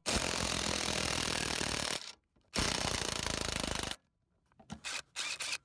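Cordless impact tool hammering on the seat bolts in two long bursts, then a few short stuttering trigger pulls near the end as its battery runs flat.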